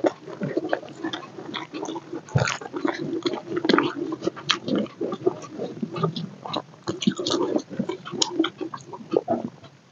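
Close-miked chewing and lip-smacking of a person eating rice and chicken with her fingers: many quick, irregular mouth clicks and smacks.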